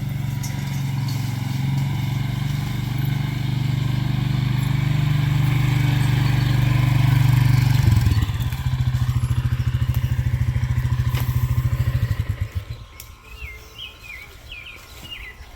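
A small engine running steadily at a fairly high speed, then dropping to a slow, pulsing idle about eight seconds in and dying away a few seconds later. A few bird chirps are heard near the end.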